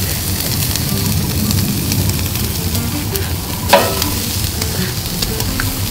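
Marinated lamb chops sizzling on a charcoal grill over hot coals, a steady hiss full of small crackles, with one louder crack a little past halfway.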